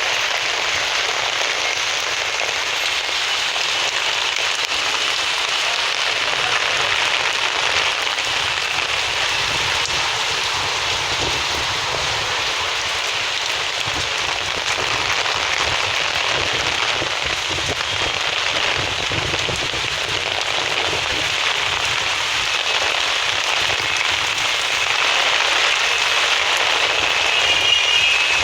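Steady rain falling: an even, continuous hiss that holds at the same level throughout.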